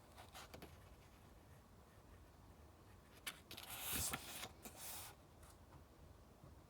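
A page of a paper book being turned: a short paper rustle of about a second and a half, starting with a small click a little past the middle, after a few faint taps near the start.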